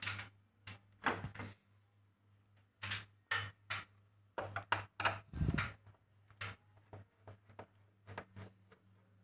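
Screwdriver clicking and knocking against the black plastic housing inside an air conditioner's indoor unit: irregular sharp clicks, with a duller thump about halfway through, over a faint steady low hum.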